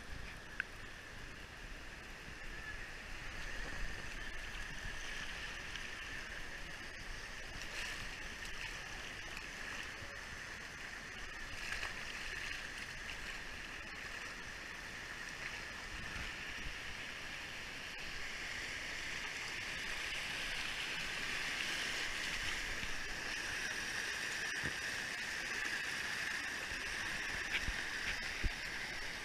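Creek water rushing and gurgling right at the microphone, a steady wash that gets louder over the last third as the current runs into small rapids.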